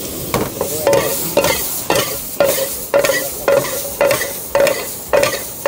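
Metal spatula striking and scraping a steel frying pan about twice a second, each stroke leaving a short ring from the pan, over the steady sizzle of onions, chillies and tomatoes frying in butter.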